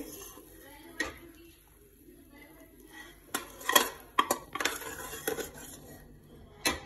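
Steel spoon scraping and knocking inside a pressure cooker as cooked masala is scooped out: an uneven run of metal clinks and scrapes, busiest between about three and five seconds in, with a last knock near the end.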